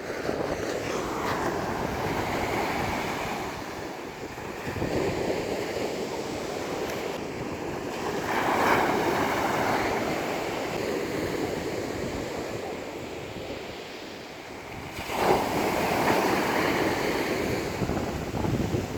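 Rough sea: heavy surf breaking and washing in, swelling and easing several times as waves come in, with strong wind buffeting the microphone.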